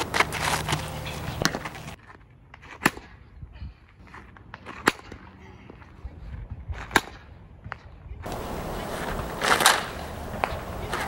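A softball bat striking balls: three sharp cracks about two seconds apart, then a louder hit near the end over outdoor background noise.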